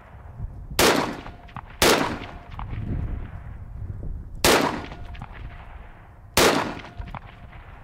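Four rifle shots from an AR-15: two about a second apart, then two more spaced about two seconds apart, each followed by a trailing echo.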